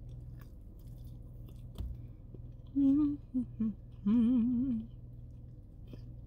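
A woman humming "mmm" with her mouth closed while chewing: a short hum about three seconds in, two brief ones after it, then a longer warbling hum, a sign of enjoying the food. Faint chewing and mouth clicks come in between.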